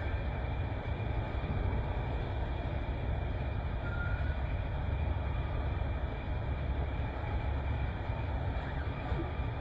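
Bharat Benz multi-axle tipper truck's diesel engine running steadily, a low rumble with no change in pitch.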